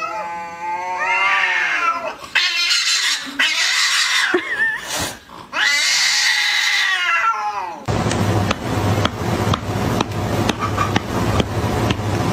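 Two cats fighting, with long wavering yowls that break into harsh hissing screeches twice. About eight seconds in, this gives way to a steady low hum with many small clicks and taps.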